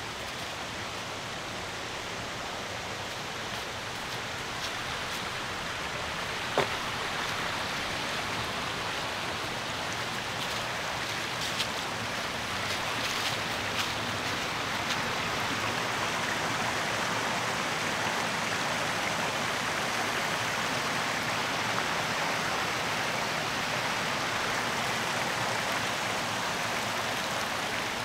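Steady rushing of a stream's running water, growing a little louder through the first half, with a few faint clicks and one sharp click about six and a half seconds in.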